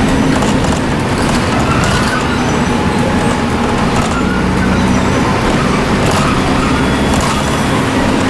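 Dennis Trident II double-decker bus's diesel engine running steadily, with a faint wavering turbo whistle over the drone and occasional short rattles.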